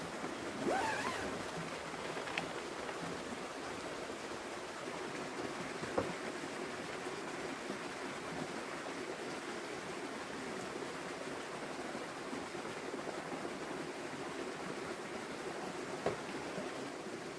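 Steady rushing outdoor background noise, with a few short clicks and knocks, the sharpest about six seconds in and another near the end.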